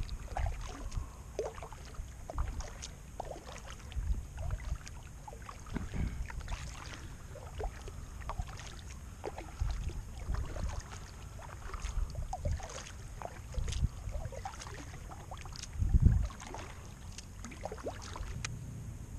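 Kayak paddle strokes dipping into calm water, a soft splash and drip about every second, with one louder thump about sixteen seconds in.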